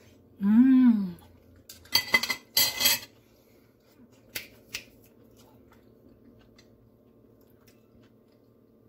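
Fork and knife clattering and scraping on a ceramic plate for about a second, followed by two light clicks. Just before it, a short hummed "mmm" that rises and falls in pitch, the loudest sound.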